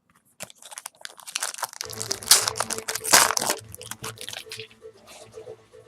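Foil wrapper of a baseball card pack being torn open and crinkled, a run of crackles and rustles, loudest around two and three seconds in. Background music enters about two seconds in.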